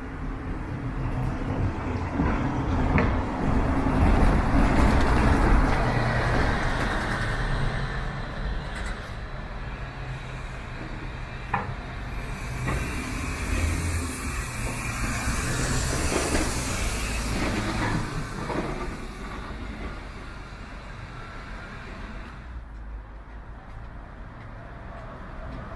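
Passing city street traffic, cars and a bus. A heavy low engine rumble swells to its loudest about five seconds in and fades. A long hiss rises and falls around the middle.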